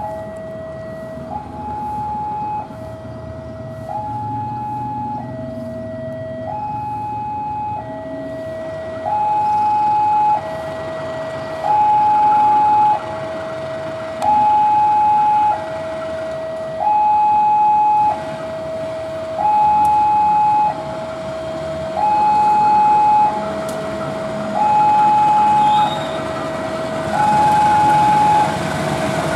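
Level-crossing warning alarm sounding a steady two-tone signal, a lower and a higher tone alternating about every 1.3 seconds and growing louder from about nine seconds in. Under it runs the diesel engine of a CC 201 diesel-electric shunting locomotive, rising near the end as it throttles up to pull its train.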